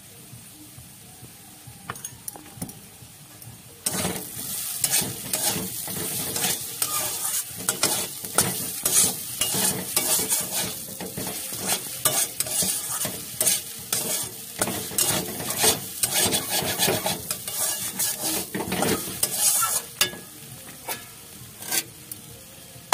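Cauliflower filling sizzling in a hot pan while a spatula stirs and scrapes it, in quick irregular strokes. The stirring starts about four seconds in and dies down a few seconds before the end.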